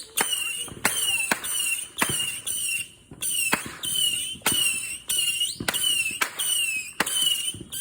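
Consumer fireworks going off in rapid succession: sharp bangs about twice a second, each followed by a short high whistle.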